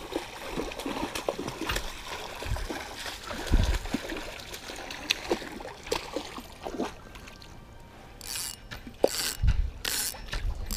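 Hooked coho salmon thrashing at the surface close to the bank, with a run of sharp splashes near the end and lighter water sounds and rod-and-reel handling clicks before them.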